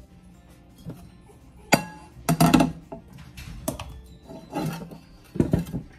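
Metal cookware handled in a stainless steel sink: a metal bowl and a nonstick saucepan knock and clink against the sink several times, some knocks ringing briefly.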